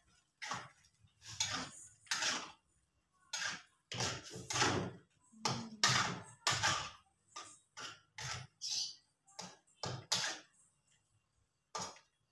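Spatula scraping and knocking in a frying pan in a series of short strokes, stir-frying baby squid in soy sauce.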